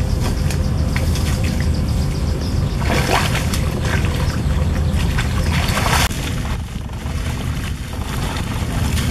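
Wind buffeting the microphone as a steady low rumble, with water splashing and sloshing as a long-handled tool is worked into shallow muddy water; a louder splash comes about three seconds in.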